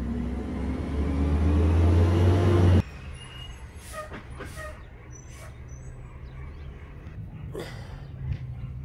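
A vehicle engine rising in pitch and getting louder as it accelerates, cut off abruptly about three seconds in. After that comes a quieter outdoor background with a few short high chirps.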